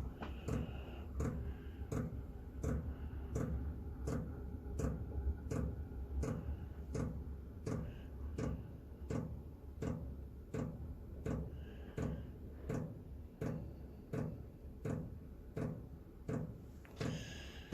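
Chinese diesel air heater's fuel metering pump ticking evenly, about two to three clicks a second, with a steady low hum underneath. The pump is feeding fuel during start-up, before the burner has lit.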